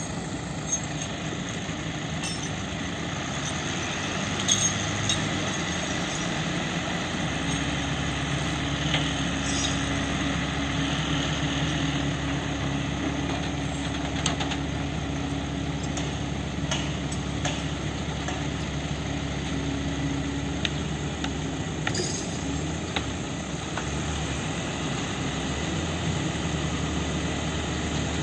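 Hino FM 260 TI truck's six-cylinder diesel running steadily to drive its loader crane's hydraulics, with a louder, steady hum from about seven seconds in until about twenty-one seconds while the crane lifts a concrete pile. A few light clanks of the lifting chains.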